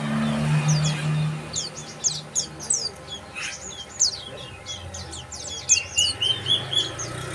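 Bar-winged prinias calling: several birds overlapping in quick, sharp chirps that sweep down in pitch, with a short run of rapid repeated notes near the end. A low steady hum fades out in the first second or so.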